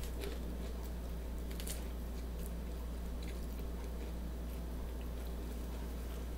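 Mouth sounds of chewing food, with a few faint soft crunches, over a steady low electrical hum.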